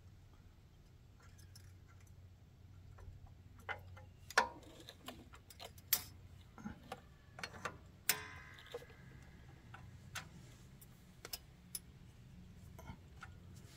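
Scattered metallic clicks and clanks of hand work on a Ferguson TO20's clutch fork, throwout bearing and return springs. The sharpest knock comes a little past four seconds in, and one a little after eight seconds rings briefly.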